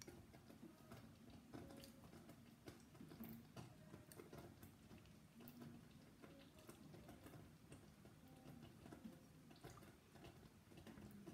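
Faint, irregular soft popping and ticking, typical of hot strawberry jam bubbling in a saucepan on the gas hob.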